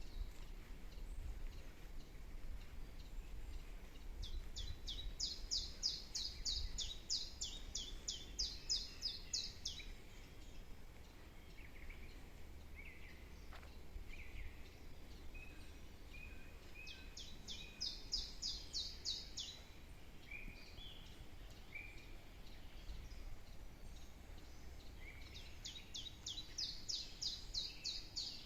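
A songbird singing three runs of rapidly repeated high whistled notes, each run lasting several seconds, with softer single calls of another bird between the runs. A low steady rumble lies underneath.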